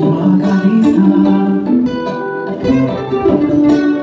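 Music with a prominent plucked guitar, playing continuously.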